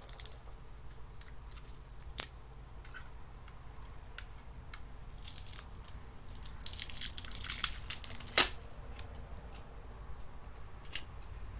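Packaging being torn and crinkled as it is forced open, with scattered sharp clicks and snaps, the loudest about two seconds in and near the end of a dense run of rustling about eight seconds in.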